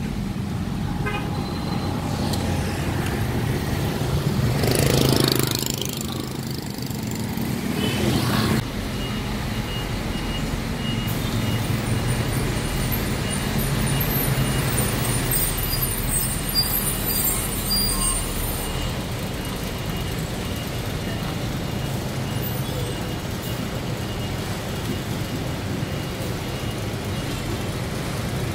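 Street traffic noise: a steady engine rumble, with one vehicle passing close about five seconds in. The sound changes abruptly about eight and a half seconds in, then settles back to steady traffic.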